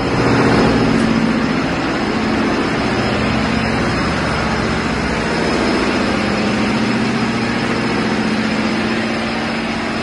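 Loud, steady drone of heavy machinery running in an engine room: a constant low engine hum over a dense mechanical roar.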